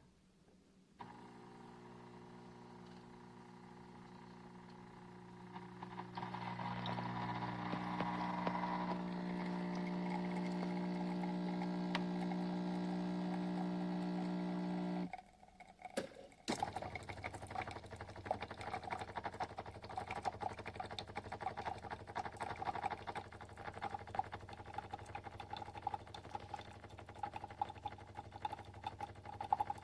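De'Longhi La Specialista Maestro espresso machine's pump humming steadily. The hum grows louder about six seconds in and stops abruptly about halfway through. After a couple of clicks, an uneven crackling, sputtering sound runs on.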